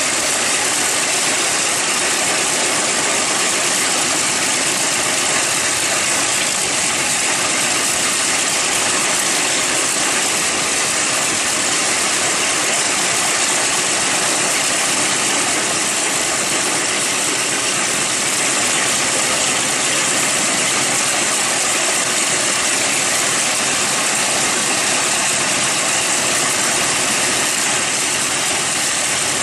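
Radial piston aircraft engine running steadily: a loud, even noise that does not change.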